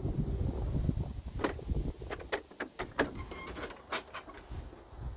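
A metal gate latch and handle being worked on a wooden gate, clinking and clicking, then a few sharp steps or clicks under a low, steady rumble.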